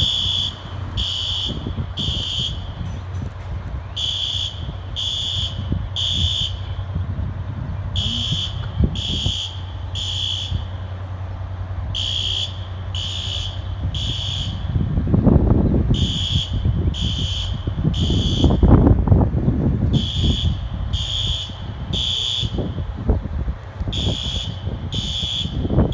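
System Sensor fire alarm horn strobes sounding the temporal-3 evacuation pattern: three short high-pitched blasts about a second apart, then a pause, repeating every four seconds. Wind buffets the microphone underneath as a low rumble, gusting loudest about halfway through.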